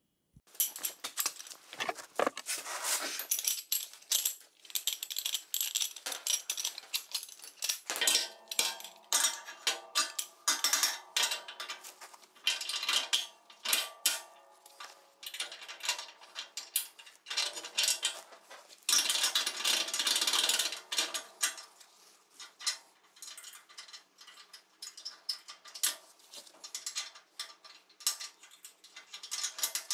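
Irregular metallic clinking and clattering as steel hand tools and fittings are worked on the spring mounts of a steel snow plough blade, some knocks ringing briefly.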